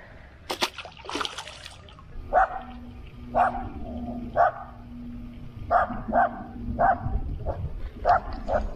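A fish splashes into the water about half a second in, then a dog barks repeatedly from about two seconds in, roughly once a second.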